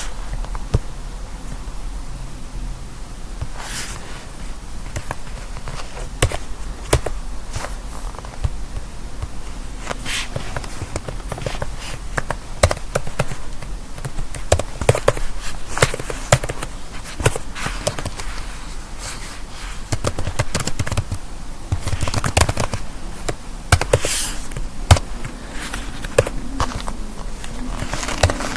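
Irregular light taps, clicks and knocks, some louder than others, over a low steady hum.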